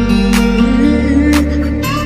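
Background music led by acoustic guitar, with a steady beat about once a second.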